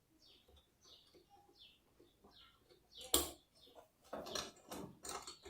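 A washing machine motor's wiring harness being handled and fitted, giving a few sharp clicks and knocks, the loudest about three seconds in. Faint bird chirps are heard in the first few seconds.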